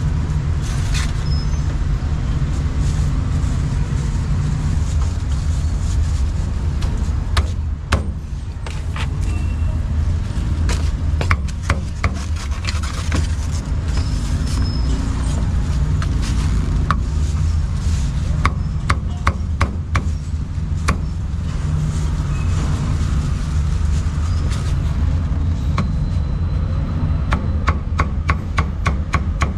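Cleaver chopping roast goose on a thick wooden chopping block: sharp knocks, sometimes single, sometimes in quick runs, with a fast series near the end. Under them runs a steady low rumble of street traffic and motorbikes.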